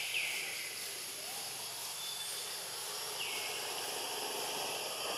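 Steady background hum of insects, with a few short high-pitched calls that drop in pitch and then level off: two close together at the start and a longer one about three seconds in.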